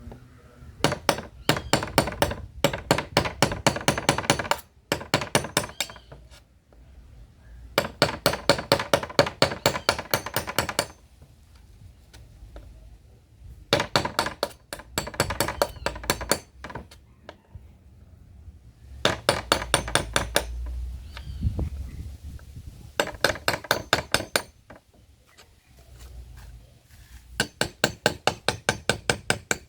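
Hammer rapidly striking an iron tool, in bursts of a few seconds at about six ringing blows a second, with short pauses between the bursts.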